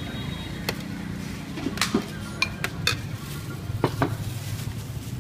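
Metal ladle knocking and scraping against a stainless steel serving tray as food is scooped: about half a dozen sharp metallic clinks, a couple of them ringing briefly, over a steady low background hum.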